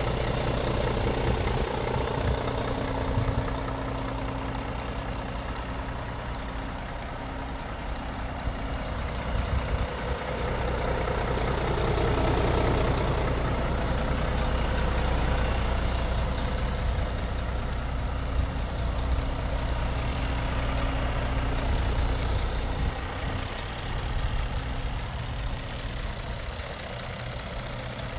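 Scania R500 truck's 13-litre straight-six diesel engine idling steadily.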